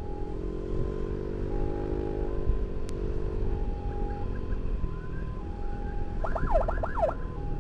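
Emergency sirens in a two-tone hi-lo pattern, switching between two pitches about once a second, over a motorcycle engine running at riding speed with wind rush. Near the end the siren changes to a few quick rising-and-falling sweeps.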